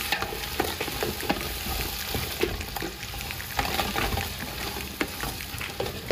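Sliced shallots frying in hot oil, sizzling steadily, while a wooden spoon stirs them around a large aluminium pot with frequent irregular light scrapes and taps.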